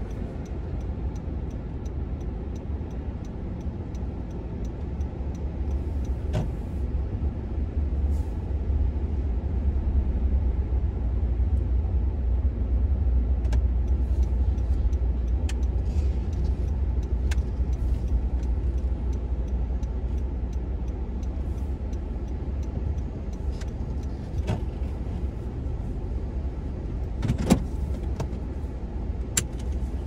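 Car driving slowly at low speed: a steady low rumble of engine and tyres that grows louder through the middle. A few light clicks and knocks sound over it, the sharpest near the end.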